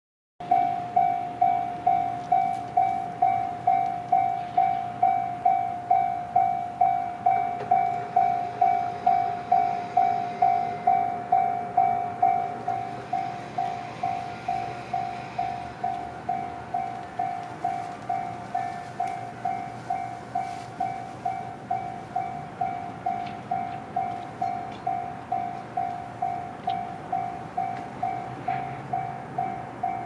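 Japanese railway level-crossing warning bell ringing steadily, a little over two strikes a second. It drops in volume about twelve seconds in.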